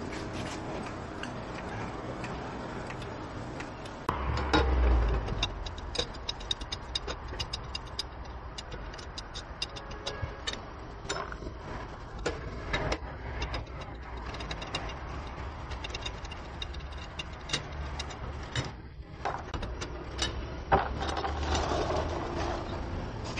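Irregular metallic clicks and clinks of a cross-shaped lug wrench working the lug nuts on a Tesla Model X wheel, over a steady low rumble, with a louder low thud-rumble about four seconds in.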